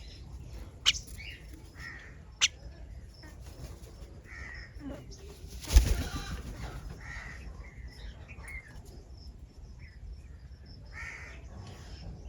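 Wild birds at a fruit feeder: short calls now and then, two sharp taps in the first few seconds, and a brief loud burst of wing flapping a little before the middle.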